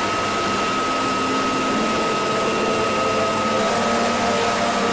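Military helicopters' turbine engines and rotors running on the ground, heard from inside an open cabin door: a steady rushing noise with a high, steady whine over it.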